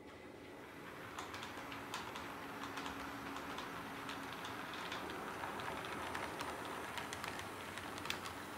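HO scale model diesel locomotives and work train cars rolling along the track, with a steady running rumble and many small irregular clicks from wheels on rail joints. The sound grows louder over the first couple of seconds as the train approaches.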